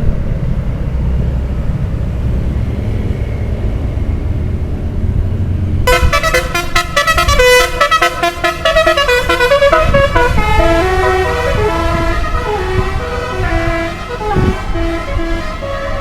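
A low vehicle rumble, then about six seconds in a bus's telolet horn, a set of musical air horns, starts playing a quick tune of short notes that step mostly downward and keeps on to the end.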